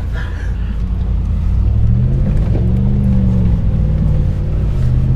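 Lexus GX SUV engine with an aftermarket exhaust, heard from inside the cabin while driving a bumpy snow-covered trail: a steady low rumble, with the engine revving up and easing off about two to three and a half seconds in.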